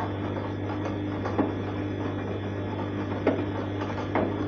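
Arçelik 3340 SJ front-loading washing machine tumbling a wet, foamy wash load: a steady motor hum with water sloshing in the drum, and three short thumps as the laundry drops.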